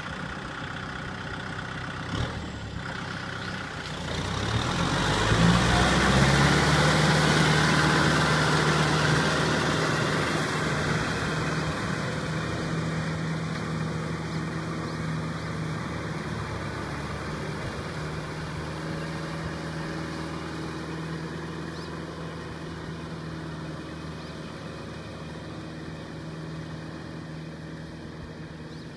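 Kubota tractor's diesel engine rising in pitch and getting louder about four seconds in, then running steadily under load as it pulls a rotary tiller through a flooded paddy. It fades gradually as the tractor moves away.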